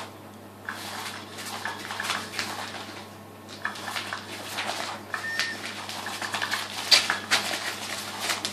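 Irregular scratching, tapping and rustling on the nylon skirt of a Cat's Meow cat toy as kittens paw at it and its wand moves underneath, over a steady low hum.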